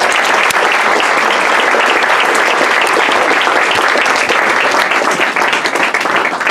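Audience applauding: many people clapping together, starting suddenly and holding steady, then beginning to thin out into separate claps at the very end.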